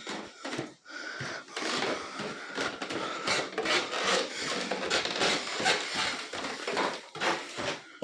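Rubbing, scraping and irregular knocking from a phone being handled and carried while walking, the noise rubbing right on the microphone.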